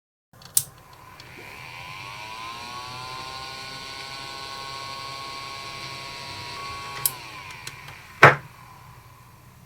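Ventilation fan switched on with a click, its motor spinning up to a steady whine with the abnormal running noise that is traced to the motor bearings. About seven seconds in it is switched off with a click and winds down, followed by a sharp loud knock.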